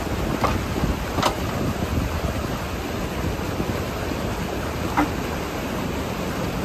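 Bobcat E35 mini excavator's diesel engine running while the boom swings up, mixed with water pouring through a breached beaver dam. Three short sharp clicks: one about half a second in, one just over a second in, one about five seconds in.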